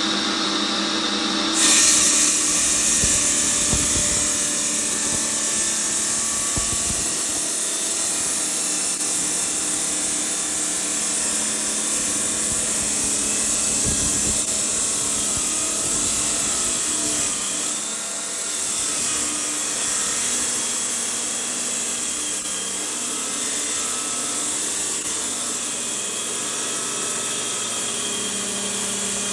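Power saw cutting into a piece of Tiffany stone, a steady high grinding hiss that grows sharply louder about a second and a half in as the blade bites.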